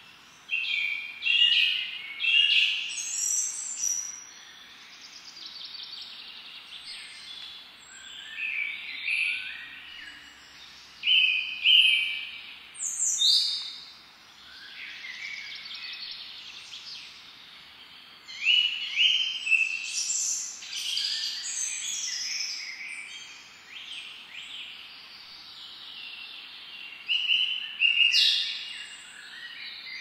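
Woodland songbirds singing: bursts of high, twittering song phrases every few seconds, with short lulls between, over a soft steady background hiss.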